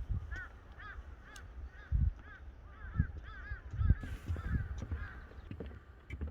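Crows cawing in a quick series of short, harsh calls, two to three a second, for about five seconds. Low thuds sound underneath.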